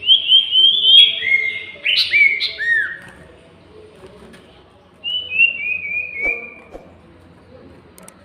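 Sirtu (common iora) song: runs of short, clear whistled notes stepping down in pitch. There are a few arched, swooping notes about two seconds in. A second descending run of about five notes comes about five seconds in.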